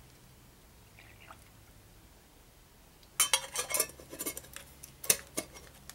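Quiet at first, then from about three seconds in a run of light metallic clinks and taps as the stainless paint cup of a gravity-feed spray gun, just filled with clear coat, is handled and closed with its lid.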